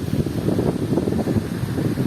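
Loud low rumbling and crackling noise on the microphone, like wind buffeting or rubbing against the mic.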